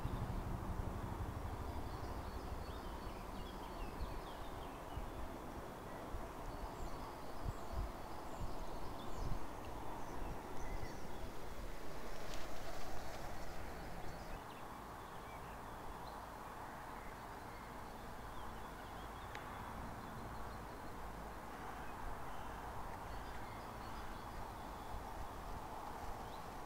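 Outdoor ambience: small birds chirping here and there over a steady background hiss and low rumble.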